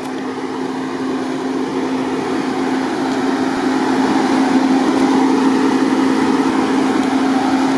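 Jeep Wrangler's engine running at a steady pitch while the vehicle sits bogged in deep mud, slowly growing a little louder.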